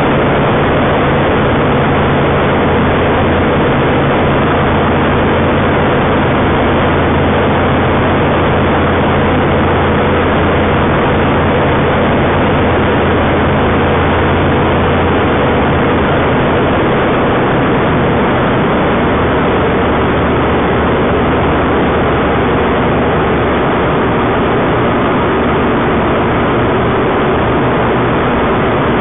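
Engine and propeller of a homebuilt light taildragger aircraft in flight, heard from inside the cockpit as a loud, steady drone. The low engine note shifts slightly a little past halfway, and again later.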